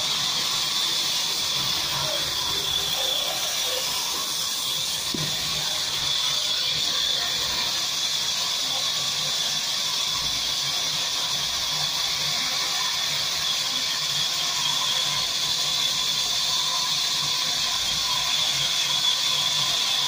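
Sawmill log band saw running, a steady high-pitched whine over a hiss.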